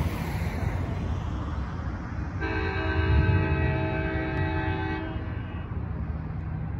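Multi-note train horn sounding one long blast of about two and a half seconds, starting a couple of seconds in, from an approaching Altamont Corridor Express commuter train led by cab car 3305, over a steady low rumble.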